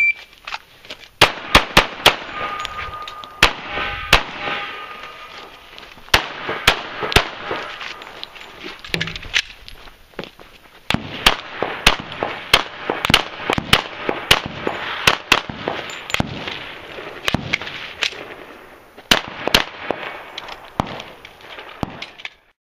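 An electronic shot timer's start beep, then a long course of .45 ACP pistol fire: rapid strings of shots with short pauses between them.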